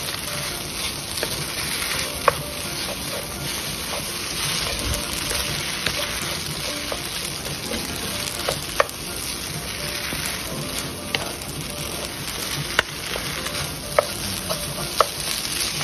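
Pad thai noodles sizzling in a frying pan as they are stirred and tossed with a wooden spatula: a steady frying hiss with several sharp knocks of the spatula against the pan.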